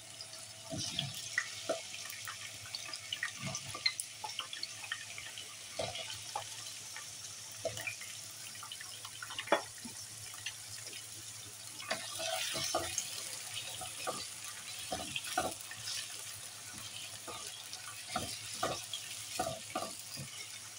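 Potato chunks frying in hot oil in a nonstick wok: a steady sizzle with many small crackles, and scattered knocks as more pieces go in. Near the end a wooden spatula scrapes and turns them.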